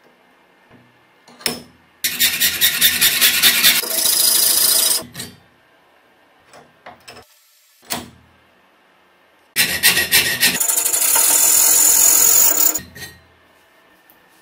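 Metal being cut twice, each cut about three seconds long: a slot is ground into a steel washer held in a vise. Each cut starts with a rapid chatter and then runs steady and high-pitched, like a small rotary tool's cutting disc on steel. There are a few light knocks between the cuts.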